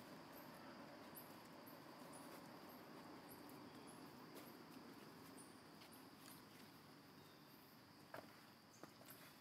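Near silence with faint outdoor insect sound: short high chirps scattered irregularly over a steady high hum. Two faint clicks come near the end.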